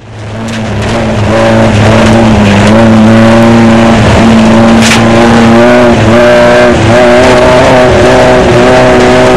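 Off-road desert race car's engine running at a fairly steady pitch, heard from on board the car, fading in over the first second. There is a single sharp click about five seconds in.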